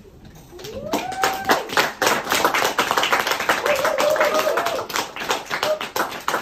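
Small audience clapping, starting about half a second in and quickly building to full applause, with a voice or two calling out over it.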